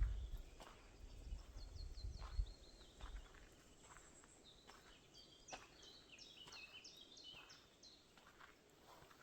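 Songbirds singing in short, repeated high notes, with a busier run of overlapping phrases in the middle. Wind rumbles on the microphone for the first few seconds, and a few soft footfalls sound along the way.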